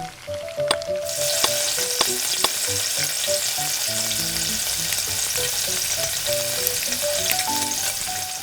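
Hot cooking oil sizzling loudly in a miniature pan, starting about a second in, with occasional light clicks of a utensil stirring.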